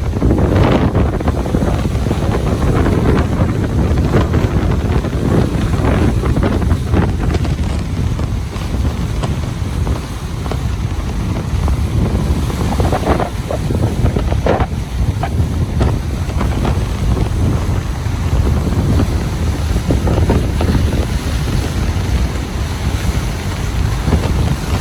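Ocean surf washing on a beach, a steady loud rumble of breaking waves with the sharper wash of individual breakers now and then, overlaid by wind buffeting the microphone.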